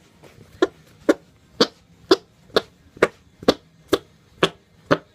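Imitation fart noises made by a person: a steady series of short squelchy pops, about two a second.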